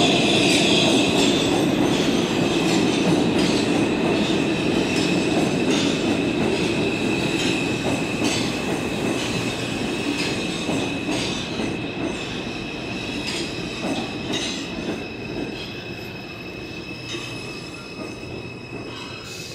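An R142 New York City Subway train running along a station platform. Its wheels squeal with a steady high whine over the rumble of the cars, and there are repeated clicks as the wheels cross rail joints. It grows steadily quieter as it goes.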